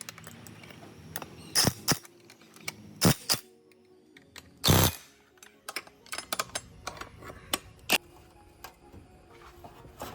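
Background music with a run of irregular sharp clicks and knocks, the loudest a longer knock about five seconds in, with a quick cluster of smaller clicks later on.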